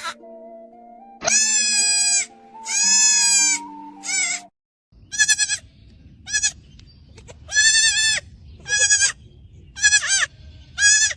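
Young goat bleating repeatedly, about ten calls, some long and some short. The first three come over steady background music. After a brief break, a quicker series of bleats follows over outdoor background noise.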